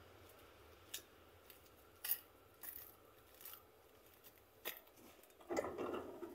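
Scattered small clicks and scrapes, then a longer, louder scraping rustle near the end.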